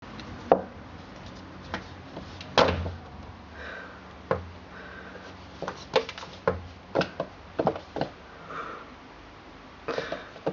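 Irregular knocks, taps and thuds of a kitten's paws pouncing on a wooden floor and against a floor mirror, with cloth rustling as it scrabbles. The two loudest knocks come about half a second and two and a half seconds in, and a quicker run of taps follows around the middle.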